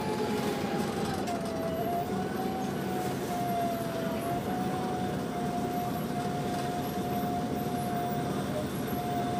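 Volvo B7TL double-decker bus driving, heard from inside the lower saloon: low engine drone under a steady high whine from the Voith automatic gearbox, which dips slightly in pitch about a second in and then holds level.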